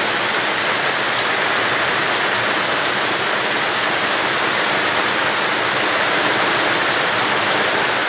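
Heavy tropical downpour: a steady, even hiss of rain falling on and around a hut's corrugated metal roof.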